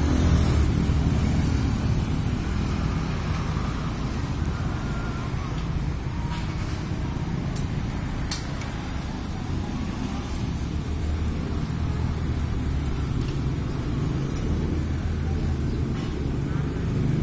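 Road traffic: motor vehicle engines running and passing in a steady low rumble, with two sharp clicks about halfway through.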